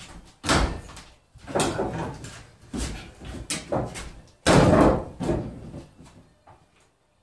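A series of wooden knocks and thumps from framing work, about six over five seconds, the loudest about four and a half seconds in, then dying away.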